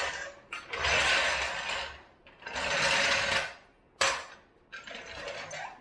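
Steel floor jack being wheeled across a garage floor, its casters rattling in three pushes, with a sharp knock about four seconds in as a wooden block is set down.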